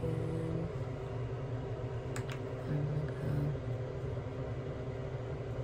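Steady low room hum, with two faint clicks about two seconds in.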